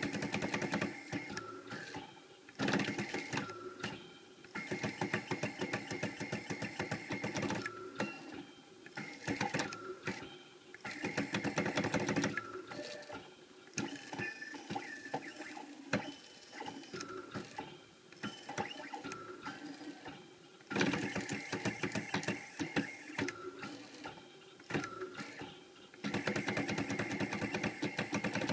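Stepper motors of a CNC X3 mill driving its axes through an engraving program, with the spindle switched off: a buzzing, whirring whine in spells of one to several seconds whose pitch steps up and down as each move changes speed and direction. A spring-loaded diamond drag bit is tracing letters into a stainless steel knife scale.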